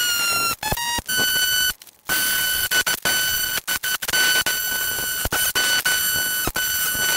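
Cordless rotary hammer with a chisel bit chipping concrete and blockwork at the base of a door opening: a steady high-pitched motor whine, cut by short pauses on the trigger and one longer stop about two seconds in.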